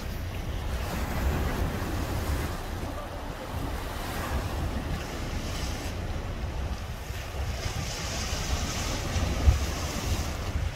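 Wind buffeting the microphone in gusts, over the steady wash of choppy lake waves, with one stronger thump of wind near the end.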